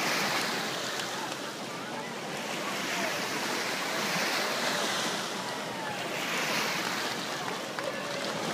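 Small surf washing up the sand and drawing back, the rush rising and falling in a few swells, with a crowd's voices faint underneath.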